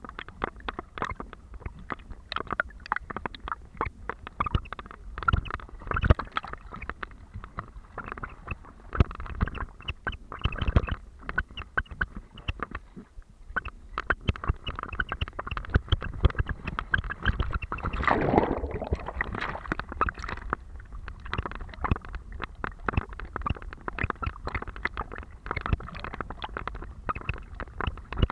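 Muffled water sloshing and gurgling around an SJ4000 action camera in its waterproof case, worn on a swimming terrier's back, with many small knocks and scrapes from the case. A louder rush of sound comes a little past the middle.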